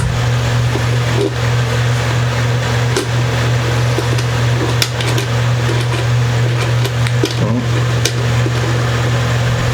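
Steady low mechanical hum running without change, with a few light clicks, about three, from the small metal nuts on the guitar's volume and tone pots being unscrewed by hand.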